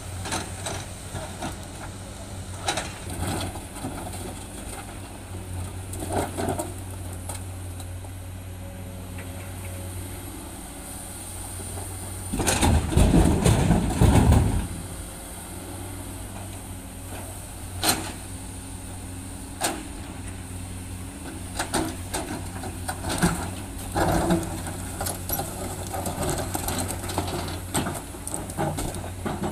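Komatsu PC210 hydraulic excavator's diesel engine running steadily while its steel bucket knocks and scrapes against boulders with scattered sharp clacks. About twelve seconds in, a bucketful of boulders is dropped into a steel dump-truck bed with a loud, low rumbling crash lasting about two seconds.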